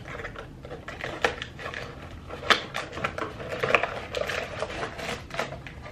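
Blind-box packaging being handled and opened by hand: irregular rustling and light crinkling with scattered clicks and taps, a few sharper ones standing out.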